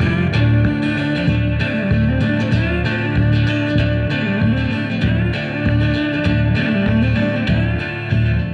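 Live band playing an instrumental break: guitar over a steady low beat pulsing about twice a second.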